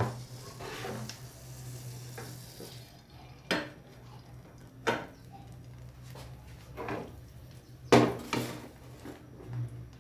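Dishes knocking on a gas stovetop: several sharp clacks, the loudest about eight seconds in. Under them is a faint sizzle of oil heating in an aluminium frying pan, which fades after about three seconds.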